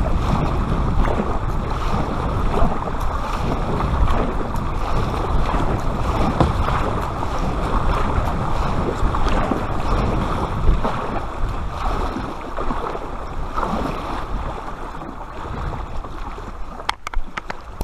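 Water washing and splashing along the hull of an Aqua Marina Beta inflatable kayak as it is paddled at sea, mixed with wind buffeting the microphone. A few sharp clicks near the end.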